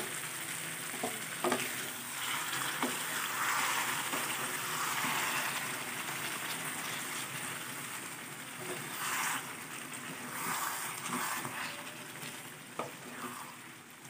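Quail gravy sizzling and bubbling in a pan while a wooden spatula stirs through the half-cooked quail. The hiss swells and eases with the stirring, and the spatula taps the pan a few times.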